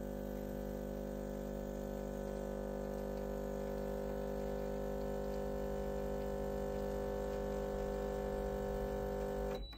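Breville Barista Express espresso machine's vibratory pump humming steadily while it pushes water through the puck to pull an espresso shot. It cuts off abruptly near the end as the shot is stopped.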